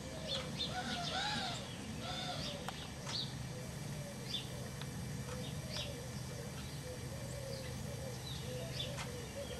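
Outdoor birdsong: many short, high chirps throughout, over a run of short, rising-and-falling calls lower in pitch, with a faint steady low hum in the middle of the stretch.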